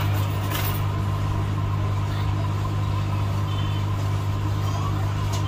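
Hot air rework station running: a steady low hum from its blower as the hot air nozzle is held over a phone's charging-port board to heat the solder.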